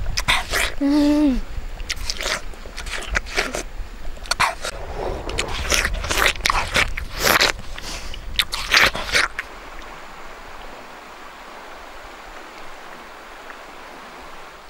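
A person biting into and eating juicy watermelon: a quick run of wet, crunchy bites and slurps that stops about nine seconds in. After that, the steady sound of flowing river water.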